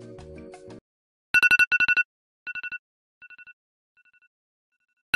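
Background music stops just under a second in. Then an electronic ring sounds in quick trilled bursts on two steady pitches, each set echoing away fainter and fainter, before ringing loudly again at the end.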